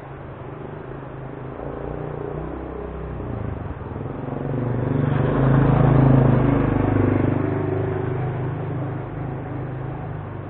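A motor vehicle's engine passing by: a low hum that grows louder to a peak about six seconds in, then fades.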